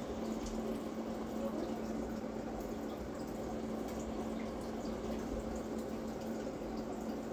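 Steady hiss with a constant low hum underneath, with no distinct clicks or cutting sounds standing out.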